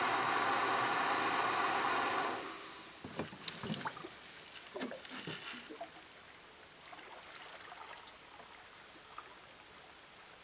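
Gas camping-stove burner hissing steadily under a metal kettle, cutting off abruptly about two seconds in as it is turned off. Then hot water is poured from the kettle into a mug, a trickle with clinks and a sliding pitch.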